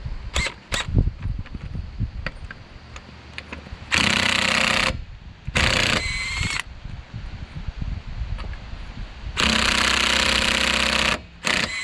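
Cordless impact wrench hammering on the wheel's lug nuts in three long bursts and a few short trigger blips, without breaking them loose; the user blames a battery getting low.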